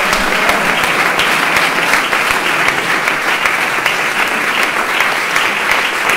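A crowd applauding: dense, steady clapping from many hands, kept up throughout.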